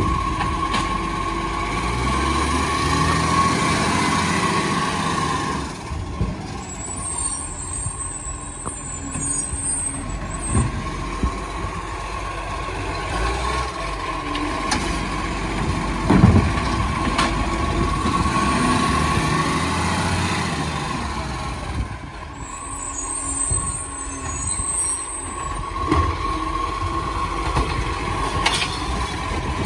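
Side-loader garbage truck's engine revving up to drive the hydraulic bin-lifting arm, then dropping back, twice as bins are lifted and emptied. Short hisses come in the lulls, and a few sharp knocks come from bins and the arm against the body, the loudest about halfway through.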